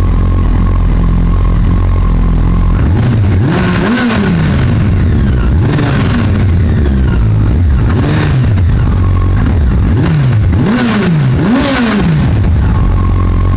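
Yamaha FJR1300 inline-four engine, fitted with an aftermarket chrome Evo dual exhaust, idling and then revved in about six short throttle blips. The pitch rises and falls with each blip, and the engine settles back to a steady idle near the end.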